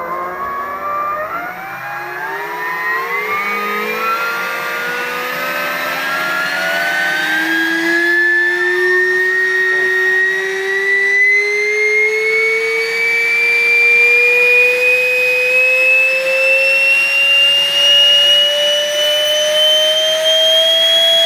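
Electric ducted fan of a Jepe Jets Mirage 2000 model jet being run up on a test, a loud whine that climbs slowly and steadily in pitch as the throttle is opened, getting louder over the first several seconds.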